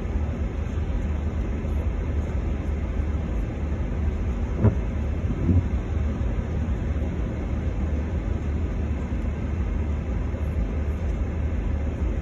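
Steady low rumble of a car's interior while it crawls in slow traffic: engine and tyre noise heard from inside the cabin. Two brief knocks just before halfway.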